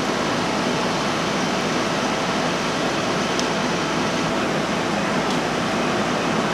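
Fire engine's engine running steadily, a constant mechanical drone with a few faint ticks.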